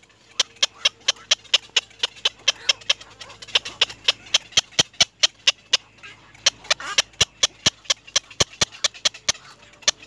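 A rapid, even series of sharp ticks, about four or five a second, pausing briefly twice, with faint higher calls between them.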